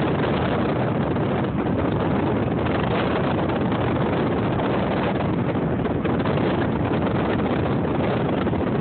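Steady rushing wind and road noise from a car driving along, with wind blowing across the phone's microphone.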